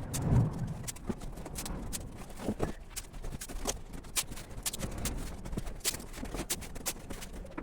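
Cardboard boxes being worked by hand: a string of irregular sharp taps and clicks, roughly two or three a second.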